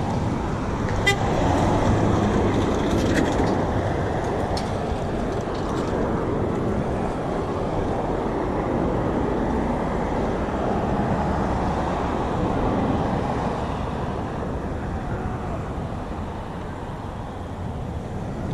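Busy road traffic passing close by: a steady wash of engine and tyre noise, with a few brief sharp sounds in the first few seconds.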